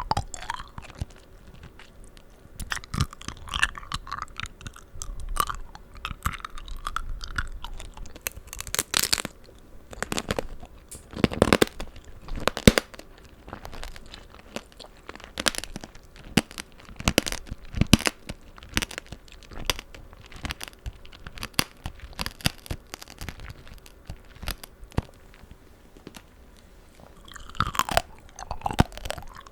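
Close-up crunching and chewing of tanghulu: the hardened sugar-candy shell cracks sharply and irregularly as it is bitten and chewed, with the softer, wet chewing of the juicy fruit inside.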